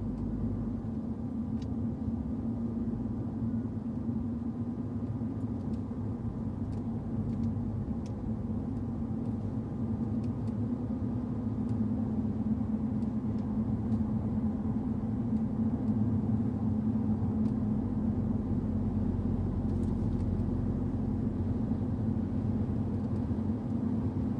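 Car engine and tyre noise heard from inside the cabin, a steady drone that grows a little louder about halfway through.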